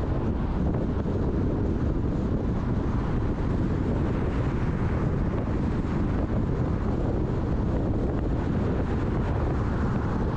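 A moving car's steady road noise, tyres and engine making an even, low rumble with no sudden events.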